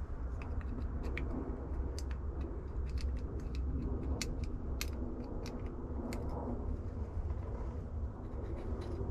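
Light metallic clicks and taps as a small screwdriver and fingers work the brush end cap back onto the can of a Mercedes seat air pump motor, fitting the brushes over the commutator. The clicks come in an irregular run, mostly in the first two-thirds, over a steady low rumble.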